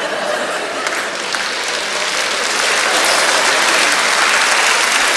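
Studio audience applauding after a punchline: a dense, steady clapping that builds up and then holds level.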